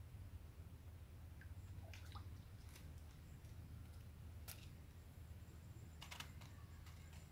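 Near quiet: a low steady hum with a few faint, scattered clicks and light handling noise from hands working a cantelan shrimp snare and its thin rod, the clearest click about four and a half seconds in.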